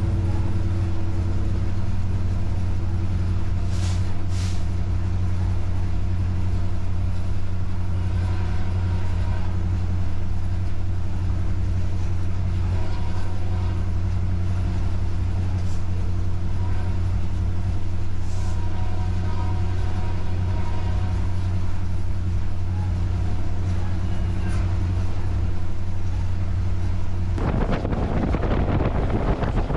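Steady low drone of a diesel freight locomotive running at speed, heard inside its cab, with a few sharp clicks. About 27 seconds in it gives way suddenly to a loud rush of wind and running noise.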